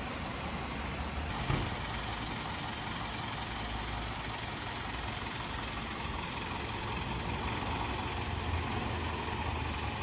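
Engine of a parked delivery box truck idling steadily, with one short knock about a second and a half in.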